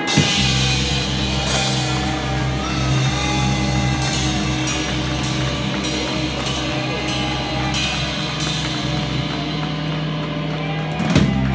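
Live rock band of drum kit, electric guitar and bass holding one long closing chord, with cymbal crashes and drum fills over it, ending on a last loud hit near the end.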